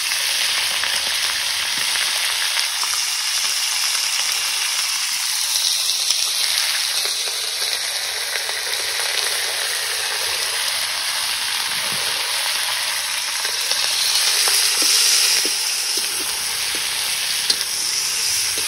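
Pork pieces sizzling steadily as they fry in a large wok, a little louder about three-quarters of the way through. A metal spatula gives a few faint scraping ticks as the meat is stirred.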